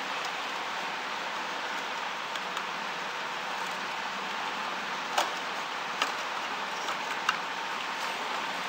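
A few sharp plastic clicks and taps from handling the opened inkjet printer's carriage and belt pulley while fitting the timing belt, the loudest about five seconds in, with three more over the next two seconds. A steady hiss lies under them.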